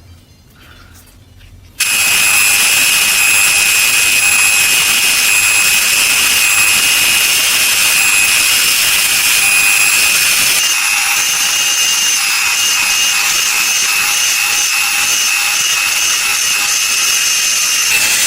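A power tool abrading metal starts abruptly about two seconds in and runs steadily: a high motor whine over a loud rasping hiss, its tone shifting slightly about ten seconds in.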